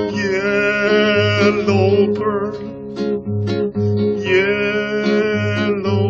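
Classical guitar fingerpicked steadily, with a man's voice singing two long wavering held notes, one at the start and one from about four seconds in.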